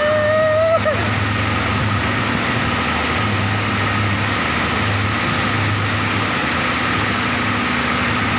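Fishing boat's engine running steadily with a low, pulsing hum under a constant rushing hiss. A long held high tone ends about a second in.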